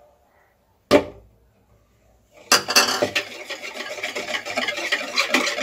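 A single sharp knock about a second in. Then, from about two and a half seconds, a wire whisk beats melted butter and oil in a plastic bowl, making a fast, steady scraping and clicking.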